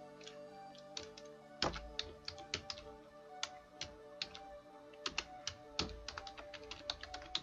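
Computer keyboard keys clicking in quick irregular runs as code is typed, over faint background music.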